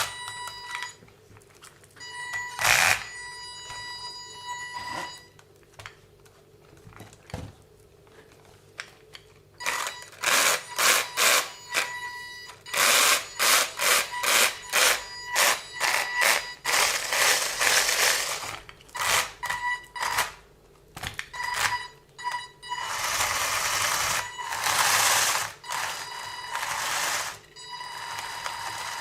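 WLtoys 144001 1/14 RC car run in short throttle blips. A steady high motor whine sits under bursts of grinding noise from the drivetrain, many short ones, then a few longer ones near the end. The grinding persists after the differentials were cleaned and rebuilt, and its cause is still unknown.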